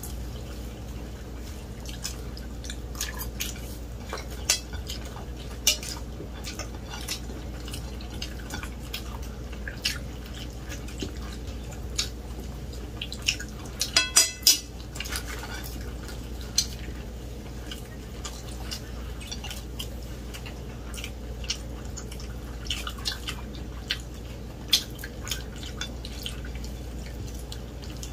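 Forks clinking and tapping on ceramic dinner plates, scattered single clicks with a quick run of several about halfway through, over a faint steady low hum.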